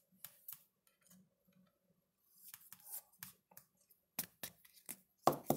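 Trading cards being handled: light clicks and a soft rustling slide as cards are flipped and moved, with sharper clicks near the end.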